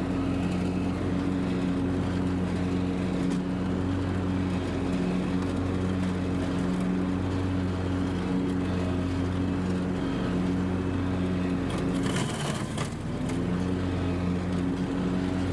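Kubota Z725 zero-turn mower's Kohler engine running steadily while mowing, easing briefly about twelve seconds in.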